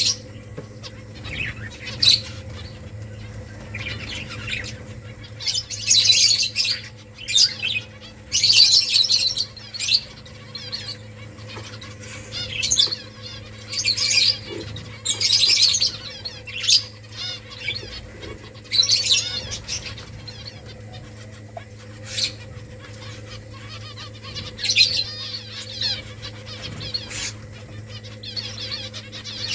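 Pet finches chirping in quick irregular bursts of short, high calls, several birds at once, over a steady low hum.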